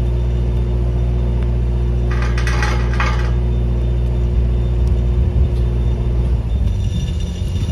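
An engine running steadily, with a brief rattle about two seconds in; the drone turns rougher and uneven near the end.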